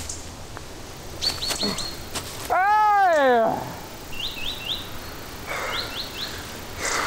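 Short high bird chirps in quick groups of three or four, with one drawn-out meow-like call, rising then falling, about halfway through.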